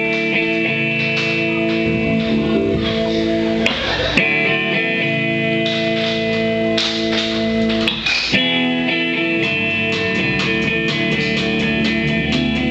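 Live rock band playing: ringing, sustained electric guitar chords that change about every four seconds. A quick, steady beat joins about nine seconds in.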